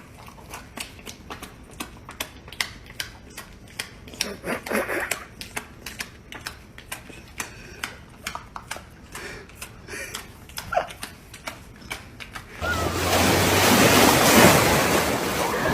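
Quick, irregular clicking and tapping, then a loud, steady rushing noise that starts suddenly near the end.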